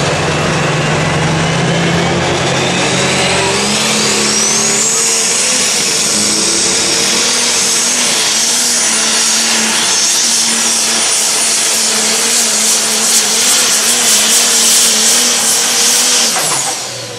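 Turbocharged diesel engine of a Pro Stock pulling tractor running at full power down the track. The engine note and a high turbo whine climb over the first few seconds, hold high and wavering through the pull, then drop sharply near the end as the throttle comes off.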